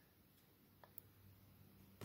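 Near silence: room tone with a faint hum, and two faint ticks close together about a second in from trading cards being handled.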